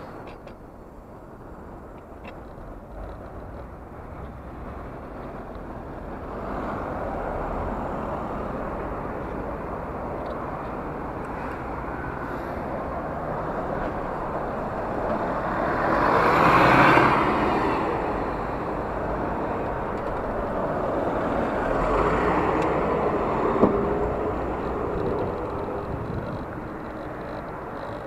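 Road traffic and wind noise on a moving bicycle's camera, with a bus passing close alongside. The noise swells to its loudest about halfway through, then rises again briefly a few seconds later.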